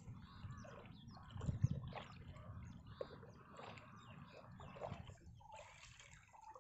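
Faint, irregular sloshing and splashing of shallow pond water, as someone wades through it.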